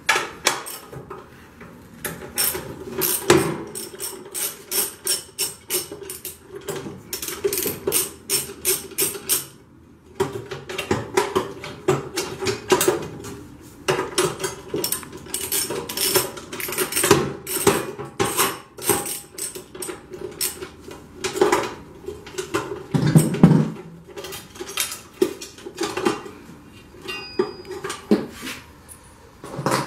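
Hand socket ratchet clicking in quick runs as the nuts on a steel battery hold-down bracket are loosened, with metal clinks against the sheet-metal battery box. One heavier clunk comes about three-quarters of the way through.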